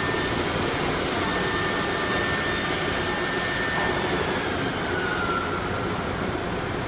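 Steady whir of running workshop machinery, with a thin high whine that slides slightly down in pitch about five seconds in.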